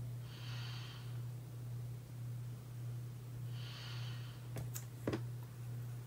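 Breaths through the nose close to the microphone, two short hissy exhales about three seconds apart, over a steady low hum. A few sharp clicks come near the end, the wand of a tube of concealer being put back in and capped.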